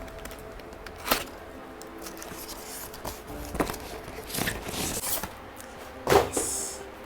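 Packaging being handled and opened: a few separate rustles, scrapes and knocks, the loudest a sharp one about six seconds in followed by a brief hiss.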